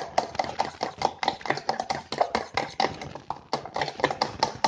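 A fork beating cake batter in a stainless steel bowl, its tines clicking against the metal sides about four to five times a second in a steady rhythm. The batter is being churned to work out its air lumps.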